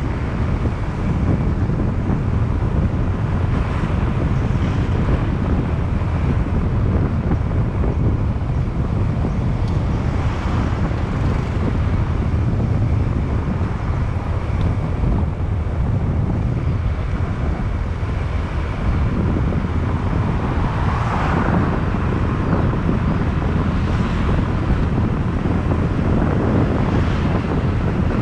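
Wind buffeting the microphone of a moving motorbike: a steady low rumble, with the bike's engine and road noise beneath it and a few brief swells along the way.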